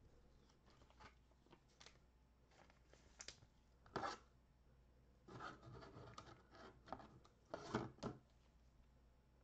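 Faint rustling, tearing and tapping from trading cards and pack wrappers being handled. The noises come in scattered short bursts, with a longer rustle about halfway through and the sharpest taps near 4 s and 8 s.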